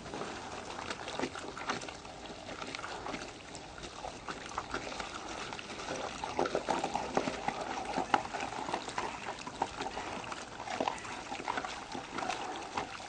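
Water from a garden-hose-fed PVC water wand jetting into soil, washing out a tunnel: steady trickling and gurgling of muddy water, with many small crackles and clicks.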